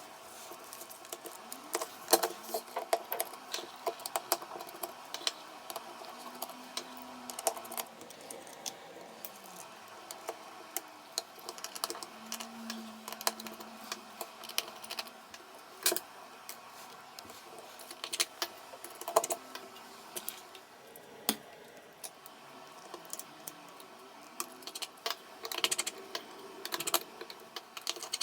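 Small hand tools clicking and tapping on an iPhone 7 Plus as it is taken apart: irregular sharp clicks of screwdriver, tweezers and plastic parts, some louder than others.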